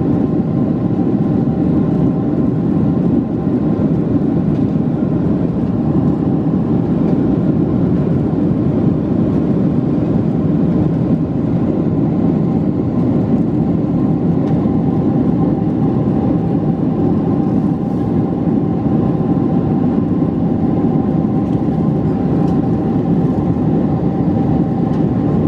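Steady engine and airflow noise inside the cabin of a British Airways Boeing 747-436 with Rolls-Royce engines, after takeoff. It is a loud, even rush with two faint steady tones above it.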